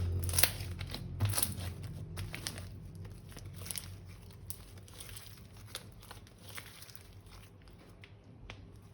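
Plastic crinkling and crackling as thin plastic bags or packaging are handled, in irregular clicks that thin out and fade toward the end.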